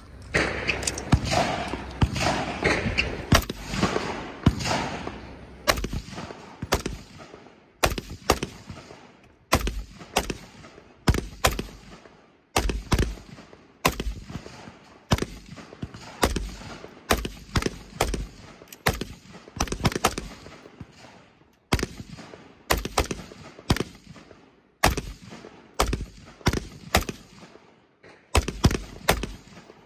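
Gunshots firing at an irregular pace, some in quick pairs or runs. Each shot ends in a short echo, and the shots come thickest in the first few seconds.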